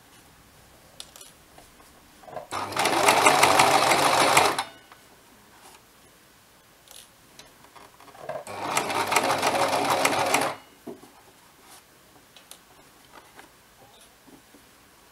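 Electric domestic sewing machine running in two bursts of about two seconds each, stitching a straight seam through folded fabric, with faint clicks in the pauses between.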